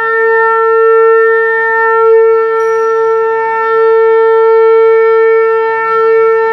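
A conch shell (shankh) blown in one long, steady, loud note.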